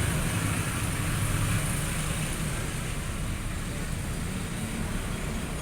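Steady road traffic noise with a low engine hum, unbroken throughout.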